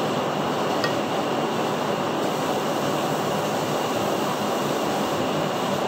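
Steady rushing background noise, with one faint clink of a metal spoon about a second in.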